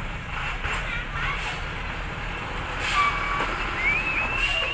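Loaded dump truck's diesel engine running at low speed as the truck creeps away over a rough dirt track, with a thin high squeal in the last second.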